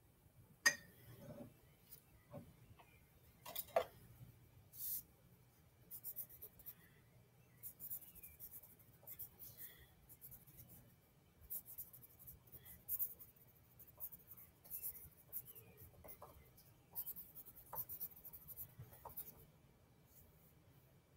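Faint, intermittent scratching and rustling, like a pen or paper being handled, with a few sharp clicks in the first four seconds, the loudest about a second in.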